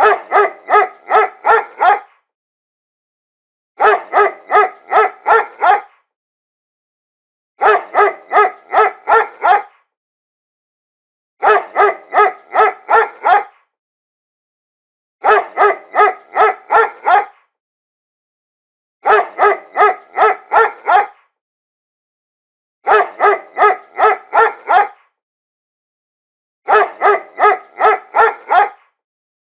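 Dog barking in quick runs of about six barks, each run about two seconds long, repeating every four seconds or so with silence between. The runs look identical, like one bark sequence looped.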